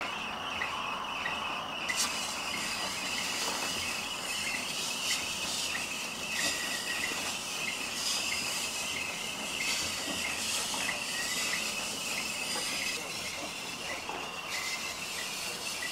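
Scythe blade being ground on a large round grindstone: a steady scraping hiss of steel on stone that swells every second or so as the blade is worked against the turning wheel.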